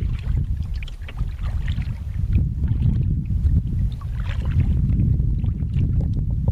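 Wind buffeting the microphone with a steady low rumble, over light splashing and dripping from kayak paddles dipping into calm lake water.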